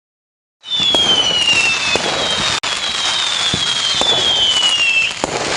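Fireworks going off, starting about half a second in: a loud, dense crackle studded with pops, with high whistles that slide downward in pitch one after another.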